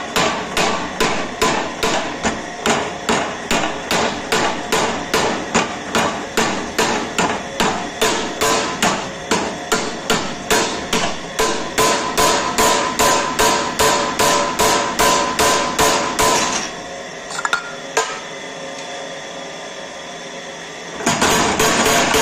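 A homemade spring power hammer strikes a red-hot 12 mm square steel bar in a swage tool on its die, in steady blows about two or three a second, drawing the bar to a point. The blows stop for about four seconds, leaving a steady hum and a few clicks, then resume faster near the end.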